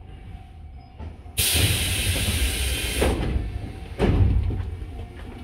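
A Tobu 8000 series electric train lets out a sudden loud hiss of compressed air from its pneumatic system, lasting under two seconds. Two heavy thumps follow about a second apart.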